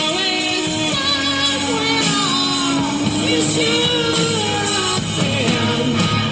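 A rock song with a singer holding long notes that slide up and down in pitch.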